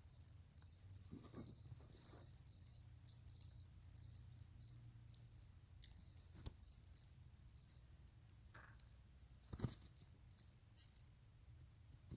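Near silence: a faint low hum with scattered light clicks and rattles, and a sharper knock near the end.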